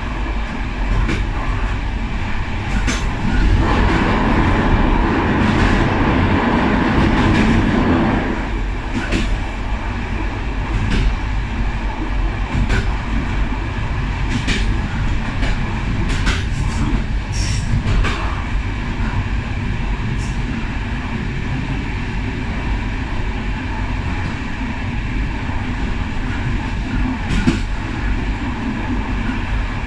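A passenger railway carriage running along the track, heard from the rear end of the last coach: a steady rumble of wheels on rail with sharp clicks every second or two. It is louder and fuller between about four and eight seconds in.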